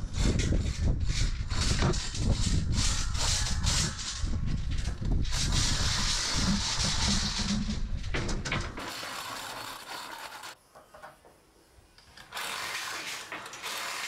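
Hand chain hoist being hauled, its chain clattering and clicking in rapid uneven runs as it cranks a panel up into a cut-out in a steel hull. The clatter is densest for the first eight or nine seconds, then drops away suddenly and comes back quieter near the end.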